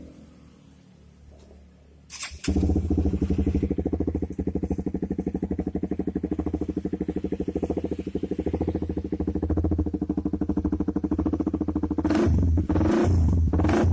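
Honda CBR150R's single-cylinder engine starting up about two seconds in and idling with a fast, even pulse through an Audey GP M3 full-system aftermarket exhaust, then blipped on the throttle a few times near the end.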